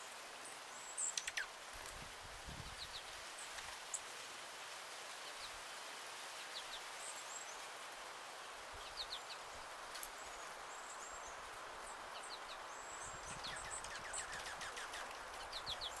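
Scattered short, high chirps and quick call notes from small songbirds over a steady outdoor hiss. The notes come in small clusters, about a second in and again near the end.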